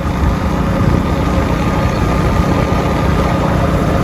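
Motorbike engine running steadily while being ridden along a road, a continuous low drone.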